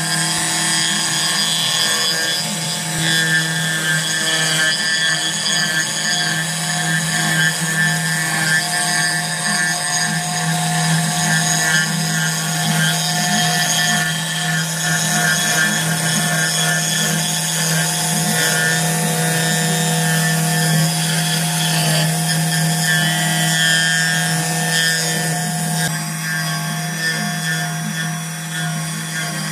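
Homemade CNC milling machine running, its motors giving a steady, loud whine of several held tones.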